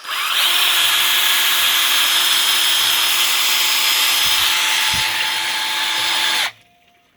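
Electric drill spinning an oil-pump priming shaft to build oil pressure in a freshly rebuilt flat-tappet engine, running steadily for about six seconds and then stopping abruptly.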